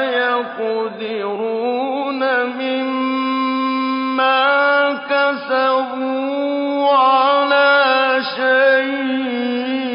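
A male reciter chanting the Quran in a slow, melodic tajweed style, drawing out long ornamented notes with a few brief breaks between phrases.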